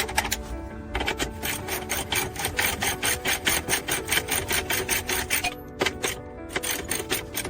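Rapid back-and-forth rasping strokes of a hand-held abrasive worked on car bodywork, about five a second, starting about a second in. Background music with held tones plays throughout.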